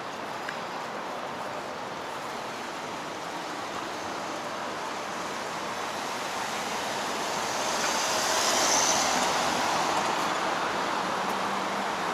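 Road traffic at a wide multi-lane intersection: a steady rush of passing cars. It swells as a vehicle goes by close about eight to nine seconds in.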